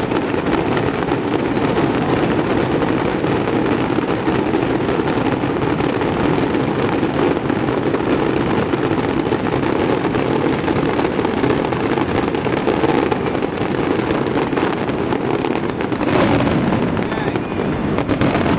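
Finale barrage of aerial firework shells, bursting in rapid, overlapping succession into a continuous din of booms and crackle, with a louder flurry about sixteen seconds in.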